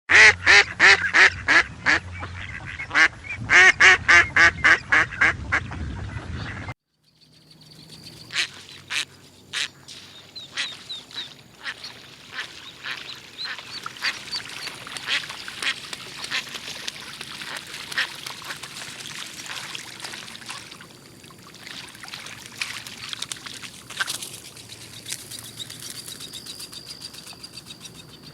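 Bird calls: a loud run of harsh calls repeated about three times a second, cut off abruptly about seven seconds in, then a quieter, busier mix of many short calls and chirps from several birds.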